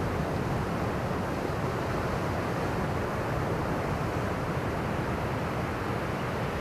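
Steady rush of ocean surf stirred by a typhoon swell, an even wash with no single break standing out.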